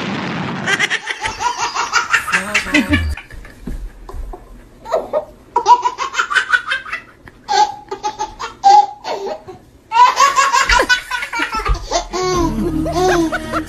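A baby laughing hard, in several bouts of rapid belly laughs with short pauses between them.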